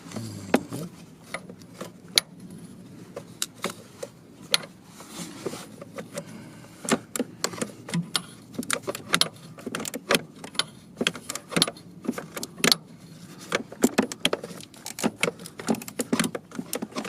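Hand ratchet clicking in short, irregular runs while small Torx screws are tightened by hand, with light metallic tool clatter.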